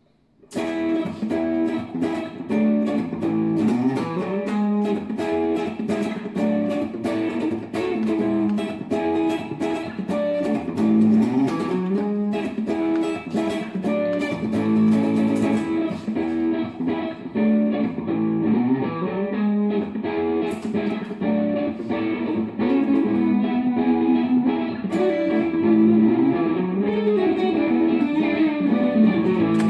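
Electric guitar played through a Line 6 looper: a phrase with string bends repeats about every four seconds while more guitar is layered over it. It starts about half a second in.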